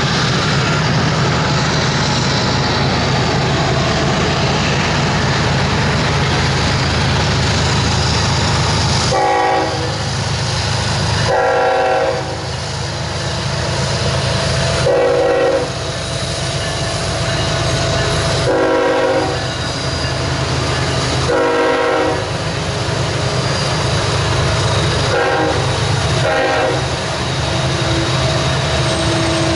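Norfolk Southern GE ES44AC diesel locomotive, with an SD60 behind it, running past with a steady low engine rumble. Its air horn sounds a chord in five blasts of about a second each, starting about nine seconds in, then two shorter toots near the end.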